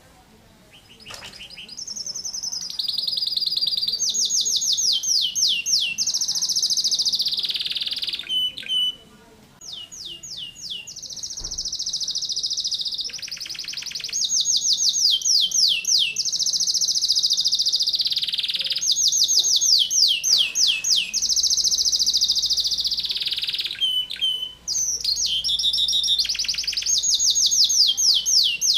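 Domestic canary singing a long, nearly unbroken song of high, fast-repeated notes and tightly packed trills: the rapid-fire "tembakan rapat" style. The song starts about a second in and pauses only briefly twice.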